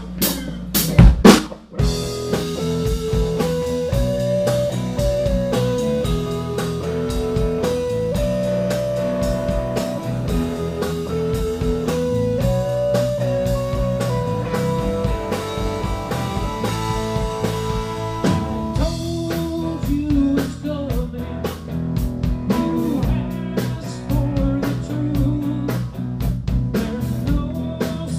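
Live band starting a song: a few loud drum hits about a second in, then electric guitar, electric bass and drum kit playing together, with a lead guitar line carrying the melody.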